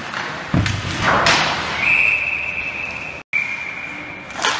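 A thud and a short scrape, then an ice hockey referee's whistle blowing one long steady note for about two and a half seconds, stopping play. The note drops out for an instant partway through.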